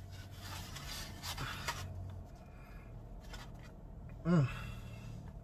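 Faint rustling and scratching as a takeout cheesesteak and its packaging are handled. A short hummed 'mm', falling in pitch, comes about four seconds in.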